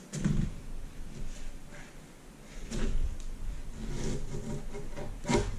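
Chef's knife sawing lengthwise through the netted rind of a Hami melon on a plastic cutting board: scraping, crunching strokes with several dull knocks, just after the start, about three seconds in and near the end, as the blade and melon bump the board.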